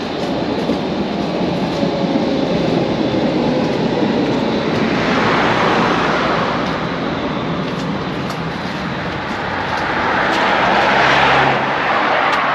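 Street traffic passing: a tram going by at first, then motor vehicles passing, with the noise swelling about five seconds in and again, loudest, about eleven seconds in.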